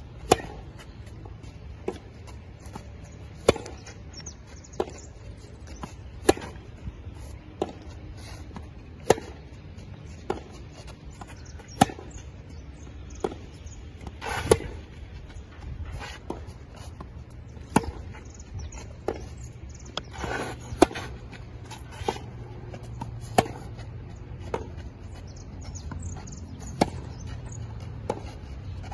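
Tennis rally: sharp racket-on-ball hits about every one and a half seconds, alternating louder near strokes and fainter strokes from the far end of the court.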